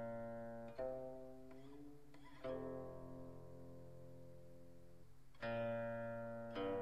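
Slow plucked-string music: four single notes, each plucked and left to ring out and fade before the next.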